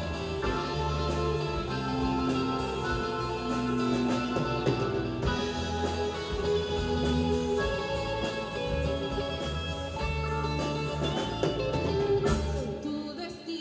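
Live rock band playing an instrumental passage without vocals: electric guitars and bass over a drum kit keeping a steady beat, with keyboard.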